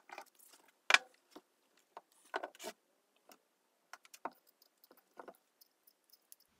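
Handling noises of an electric motor's painted metal housing and end bell being picked up and set down on a workbench: scattered clicks, knocks and scuffs, the sharpest knock about a second in.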